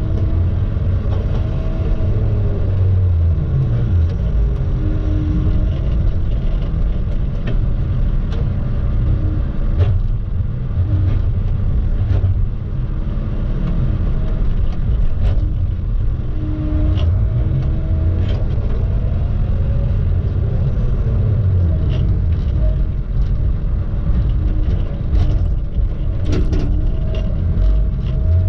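Diesel engine and hydraulics of a Tigercat knuckleboom log loader, heard from its cab, running steadily while the boom swings and the grapple handles logs. A whine comes and goes as the hydraulics take load, with scattered knocks of logs and the grapple.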